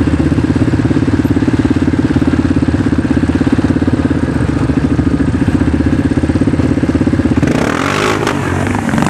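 Off-road vehicle engine running steadily with an even, rapid pulse. About seven and a half seconds in, the sound turns noisier, with the pitch sliding up and down.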